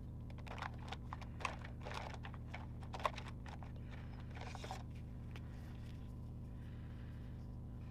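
Small clicks and taps of pens being picked up, uncapped and set down, with a short scratch of a pen on paper a little after the middle, over a steady low hum.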